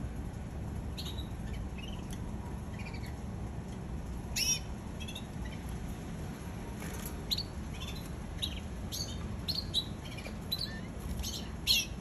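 Red canary chirping: short separate chirps and calls, not a continuous song, louder about four and a half seconds in and again near the end, over a low steady background hum.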